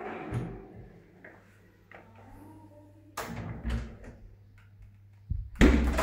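A door being handled in a small tiled bathroom: a few knocks and bumps with a faint creak between them, the loudest thump coming near the end.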